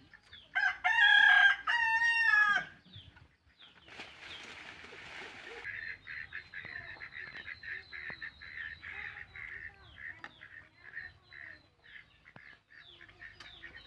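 A rooster crows once, loud, starting about half a second in and lasting about two seconds, its pitch falling at the end. Softer, rapid clucking and chirping follows.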